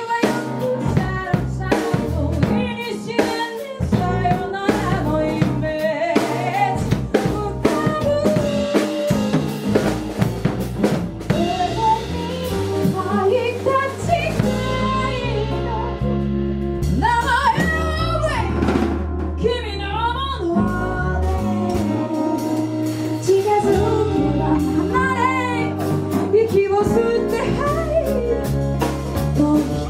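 A band playing a song: a drum kit keeps a steady beat with snare and bass-drum hits under held bass notes, and a voice sings a wavering melody.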